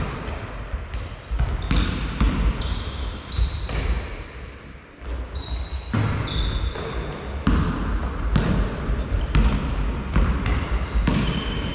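Basketball game play: a basketball being dribbled and bounced on the sports hall floor, with short high squeaks of players' shoes on the court.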